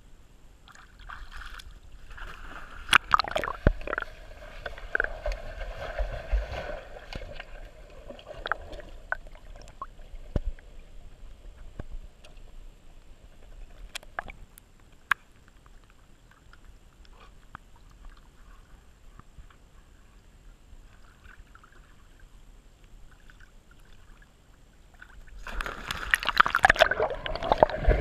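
Pool water sloshing and gurgling, heard through an underwater action-camera housing, with scattered knocks in the first half. Near the end a dog paddling right past the camera churns the water into loud splashing.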